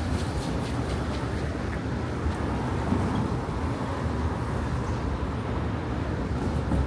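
City street traffic: cars driving past close by through an intersection, over a steady low rumble of surrounding traffic.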